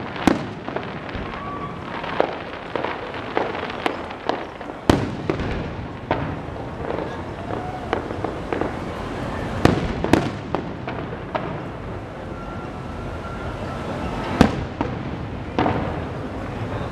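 Aerial fireworks shells bursting overhead in an irregular series of sharp booms. The loudest bangs come about five, ten and fourteen seconds in.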